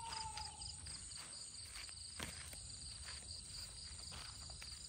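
Night insects: crickets chirping in rapid, evenly pulsed trills over a steady high-pitched insect drone, with a few faint footsteps.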